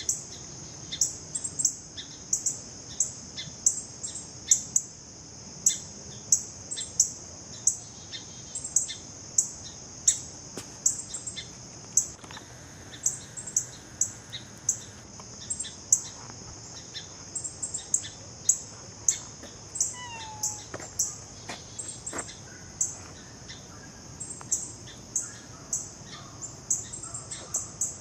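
A bird chirping over and over, short high chirps about twice a second, over a steady high hiss. A few lower whistled calls from other birds come in now and then.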